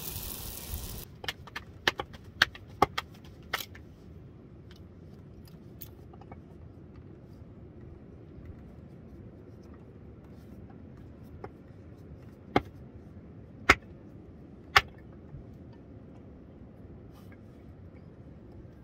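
Flatbread frying in hot oil, a sizzling hiss that cuts off about a second in. After that, a quieter background with scattered sharp clicks: a quick run of them over the next few seconds and three louder ones about two-thirds of the way through.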